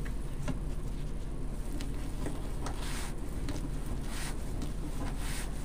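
Plastic deco mesh rustling in soft, scattered swishes as it is scrunched and tucked into a wooden wreath frame.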